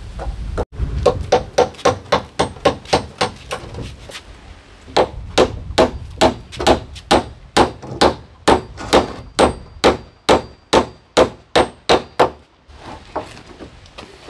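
A hammer striking in quick, even runs, about three blows a second. There is a run of about a dozen blows, a short lull, then about twenty more.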